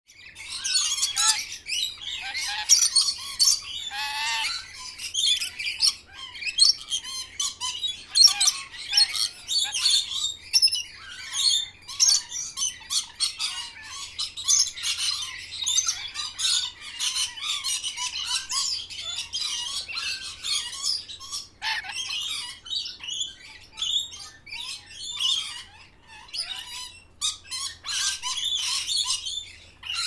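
Birds calling in a dense, continuous chatter of quick high chirps and squawks, many short calls overlapping with no pause.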